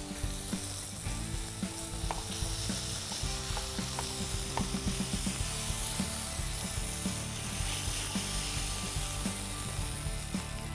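Beef burger patty frying in a hot skillet: a steady sizzle, with a few light clicks of a utensil against the pan.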